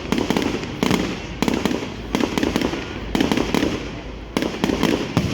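Fireworks display going off: a continuous run of sharp bangs, roughly one every second, with crackling between them.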